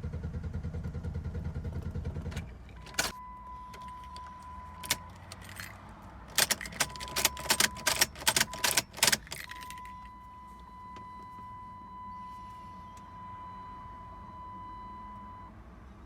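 A 1997 Jeep Grand Cherokee ZJ engine, which has a misfire and no-spark fault, pulses rhythmically and cuts out about two and a half seconds in. Then come clicks and keys jangling, and a steady high electronic warning tone that stops and resumes.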